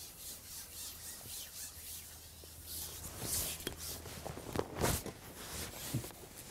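Faint rhythmic rubbing of a carbon fishing pole being handled while a fish is played, about four strokes a second. Then a few sharper knocks and rattles of tackle as the landing net is brought out, the loudest about five seconds in.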